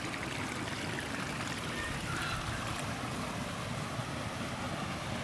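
Steady, even rushing outdoor noise with no distinct events, and a couple of faint brief high chirps about two seconds in.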